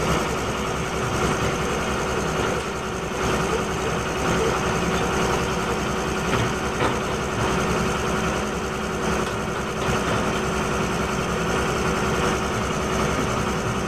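Heavy diesel engine noise from an excavator and a single-drum vibratory roller compactor, running steadily with an even hum while the excavator pushes the roller up a dirt road.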